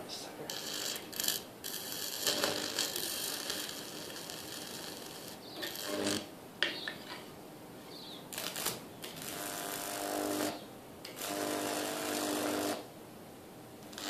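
High-voltage arcing from a microwave oven transformer, around 2000 volts, crackling and buzzing across a microwave's display circuit board in about six bursts of one to two seconds, with short pauses between.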